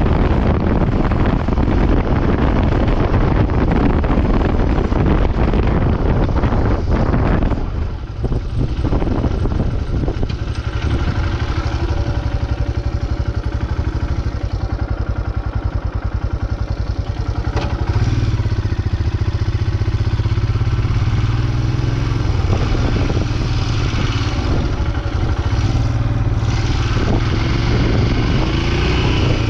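Royal Enfield Himalayan 411's single-cylinder engine running as the motorcycle is ridden. For the first several seconds wind buffets the microphone over it. After a short dip about eight seconds in, the engine note comes through steadier and clearer.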